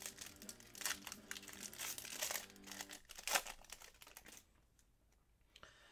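Foil wrapper of a Panini Select basketball card pack crinkling and crackling as it is handled and torn open by hand; the crackle dies away near the end.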